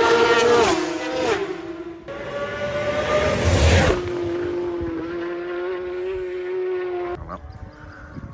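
Racing superbikes passing at high speed on full throttle, each engine note dropping in pitch as the bike goes by. Several passes follow one another, each cut off abruptly: a falling note about a second in, a louder pass that stops suddenly around four seconds in, then a steady engine note that cuts off near the end.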